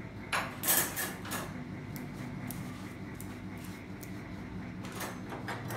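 Metal hand tools knocking and clinking as they are picked up and set down. There is a cluster of sharp knocks in the first second and a half, a few light ticks after that, and more knocks near the end.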